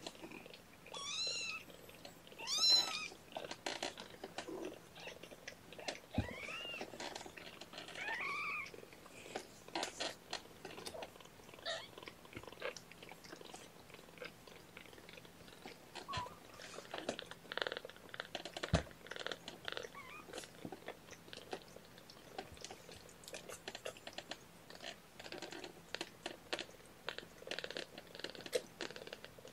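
Very young kittens mewing: several high, arching mews in the first nine seconds, then a long run of soft clicks and pops.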